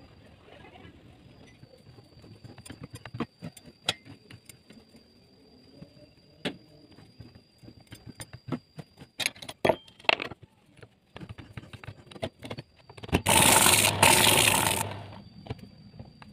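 Homemade wooden automatic saw-sharpening machine working a large saw blade: a steady high whine with irregular clicks and knocks from the feed mechanism. Near the end comes a loud grinding burst about a second and a half long.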